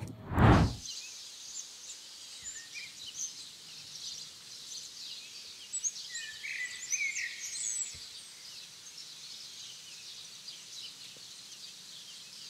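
A brief loud whoosh about half a second in, then small birds chirping and singing in woodland, busiest a little past the middle.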